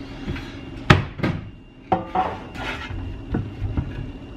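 A metal baking pan handled on a kitchen counter and halved raw sweet potatoes set into it: a series of knocks and clatters, about six in all, the loudest about a second in, some with a short metallic ring.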